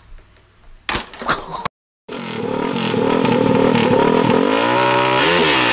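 A small motorcycle engine running hard at high revs, loud and steady, its pitch climbing and then dropping near the end as the rider speeds along. Before it, about a second in, come a couple of brief clattering knocks.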